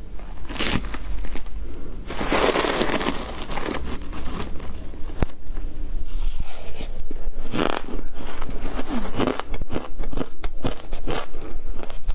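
A metal spoon scraping and digging into a bowl of ice coated in matcha powder, with a long scrape a couple of seconds in, then ice crunching and crackling sharply as it is bitten and chewed in the later half.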